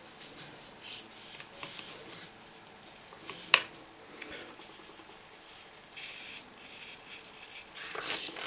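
Radio-control servos whirring in repeated short bursts as their output arms follow the transmitter sticks. There is one sharp click about three and a half seconds in.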